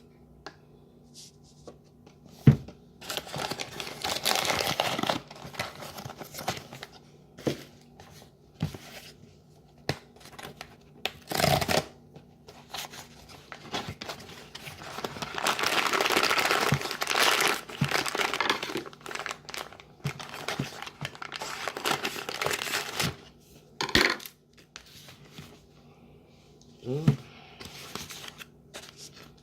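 Bags crinkling and rustling, with scattered sharp clicks and taps of a spoon against containers as tablespoons of powdered starch are scooped out. A long stretch of rustling comes about halfway through.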